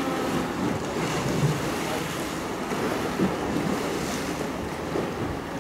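Sea waves washing against the shore, with wind buffeting the microphone.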